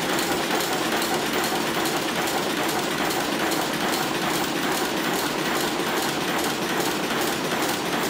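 FEDA cold heading machine for bolts and screws running, a steady, fast, even mechanical clatter from its repeated strokes.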